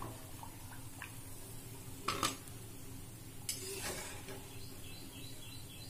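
Steel ladle clinking and scraping against the kadhai and a plate as fried dhuska are lifted from the oil, with a couple of sharp clinks about two seconds in and a longer scrape around three and a half seconds. Hot oil sizzles faintly underneath.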